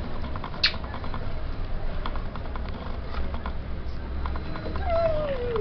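Small knocks and rustles of handling over a low rumble, then near the end a single child's vocal sound gliding down in pitch.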